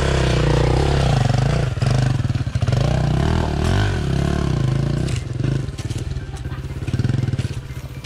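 Enduro motorcycle engine running under throttle as the bike is ridden, revving up and down, with a few knocks in the second half.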